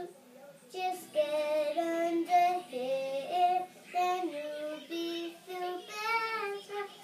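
A six-year-old girl singing a tune on her own with no accompaniment, short held notes stepping up and down. She starts just under a second in, after a brief pause.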